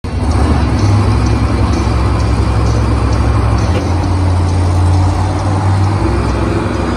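Several monster trucks' engines idling together in a deep, steady drone that shifts a little in pitch partway through.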